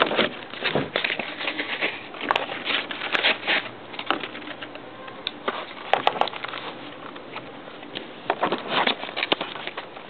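Plastic blister package with a cardboard backing card for a Hot Wheels Acceleracers car being pried and torn open by hand: irregular crinkling and crackling with sharp clicks and snaps.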